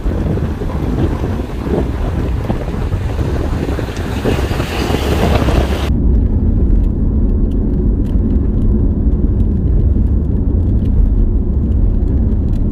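A moving car: wind rushing over the microphone, then about six seconds in an abrupt change to a steady low road and engine rumble heard from inside the car.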